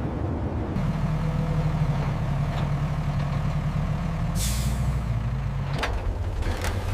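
A heavy engine running low and steady, with a short hiss of air about four and a half seconds in and two sharp clacks near the end.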